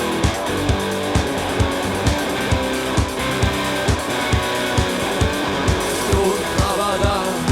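Rock song with electric guitar over a steady drum beat of about two strokes a second; a singing voice comes in near the end.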